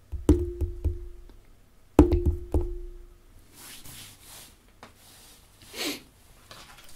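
Fingers drumming on a wooden tabletop: two quick rolls of three or four knocks, one at the start and one about two seconds in, each with a short resonant ring. A couple of soft hissing noises follow later.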